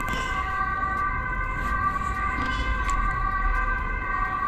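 A steady whine of several held tones that does not rise or fall, over a low rumble.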